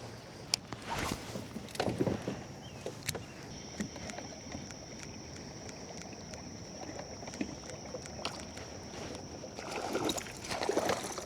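Sounds of a fishing kayak on the river: water sloshing against the hull, with scattered knocks and clicks of gear, and a thin steady high tone that starts a few seconds in.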